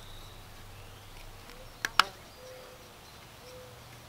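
Two sharp knocks a fraction of a second apart about two seconds in, the second louder, over a quiet woodland background with a steady high insect buzz that fades out early on.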